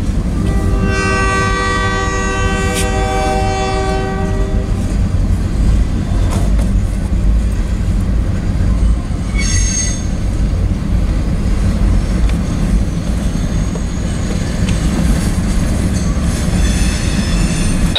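Freight train locomotive horn sounding one long chord for about four seconds over the heavy, steady rumble of a train on the rails, with a brief high-pitched wheel squeal about nine seconds in.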